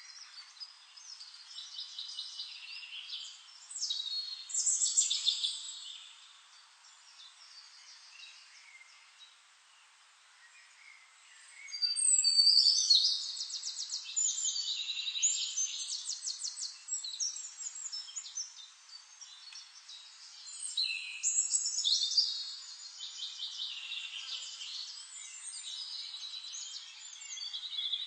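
Songbirds singing, several overlapping high, chattering calls and rapid trills. There is a quieter lull midway, and the song grows loud again about twelve seconds in.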